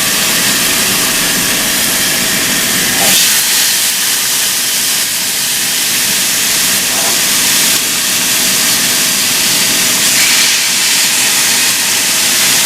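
Chicken breast searing sprayed side down in a hot oiled pan, sizzling with a steady hiss.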